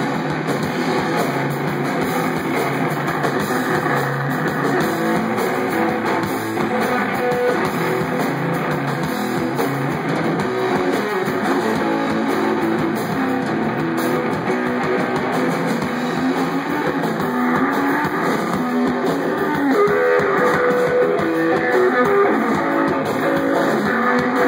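Live rock band playing an instrumental stretch led by electric guitar, steady and loud.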